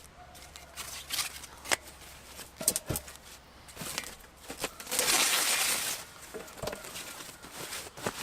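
Packaging being handled as a boxed barbecue is unpacked: crinkling and rustling with scattered short knocks, and a longer, louder rustle about five seconds in that lasts around a second.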